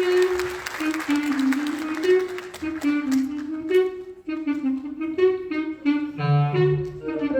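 Live instrumental music: one melodic instrument playing a flowing melody of held and moving notes in the middle register, turning into shorter, separated notes partway through. A low note briefly sounds beneath it about six seconds in.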